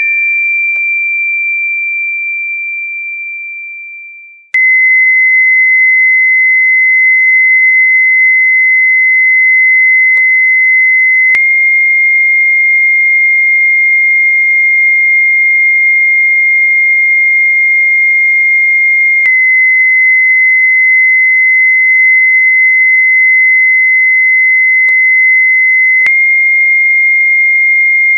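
A steady, high-pitched electronic whistle-like tone. It fades away over the first four seconds, then cuts in again suddenly and holds at an even level, stepping slightly up or down in pitch three times with abrupt cuts.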